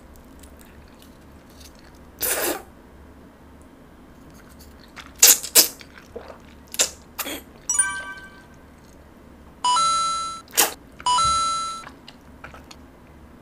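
Jjajangmyeon noodles slurped and chewed: a breathy slurp about two seconds in, then several sharp smacking clicks. Near the end come two electronic beeping tones of about a second each, an alarm-like effect as the decibel meter reads 72.9 dBA, over the 60 dB limit.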